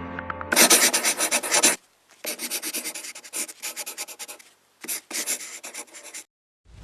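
Rapid scratching strokes, about eight a second, in three runs separated by short pauses.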